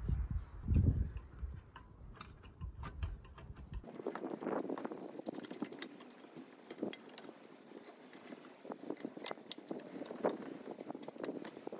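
Scattered light clicks and taps of stainless-steel stove parts handled with gloved hands as a glass door frame is fitted onto the stove body. A low rumble underneath stops about four seconds in.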